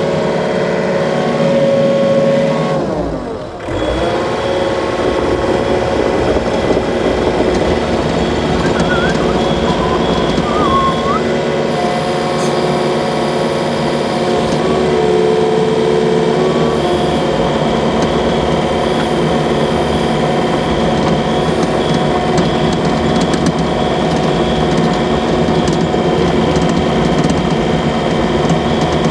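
An engine running steadily, with a brief drop in level and pitch about three and a half seconds in before it settles back.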